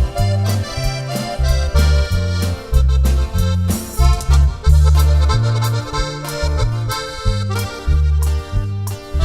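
Instrumental band passage: accordion playing the melody over a loud, rhythmic electric bass line and drums, with no singing.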